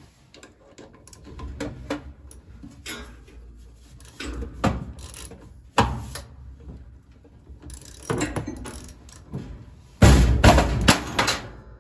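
Metal wrench clanking and knocking against a dryer's plastic blower wheel and motor shaft in short bursts, the loudest cluster near the end, as the wheel stays stuck tight on the shaft.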